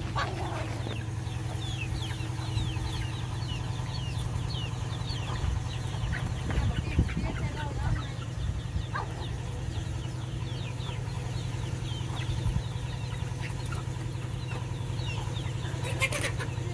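Young chickens peeping and clucking: a stream of short, high chirps that each fall in pitch, over a steady low hum.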